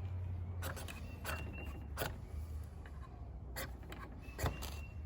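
Keychain ferrocerium rod struck with a Swiss Army knife's spine to throw sparks: about five quick scraping strikes, a couple of them followed by a faint metallic ring.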